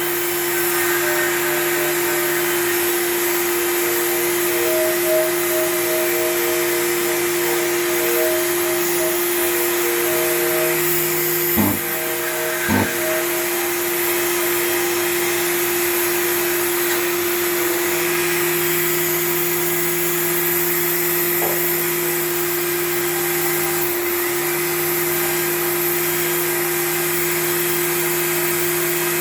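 Power sander running steadily, dry sanding a car's rear bumper, with two short knocks about twelve seconds in.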